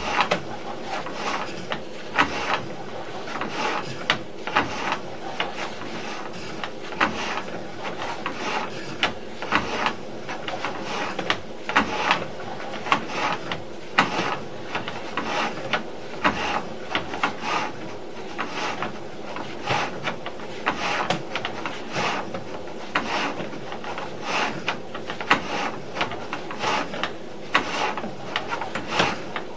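Sewer inspection camera's push cable being pulled back out of the drain line: continuous irregular rubbing and scraping with frequent short clicks and knocks.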